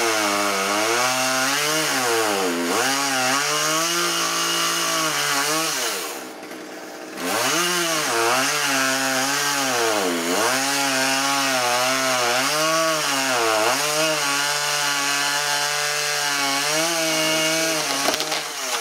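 Gas chainsaw running hard, its engine pitch sagging and rising again and again as it works through a tree limb. About six seconds in it drops briefly to a quieter idle, then revs back up.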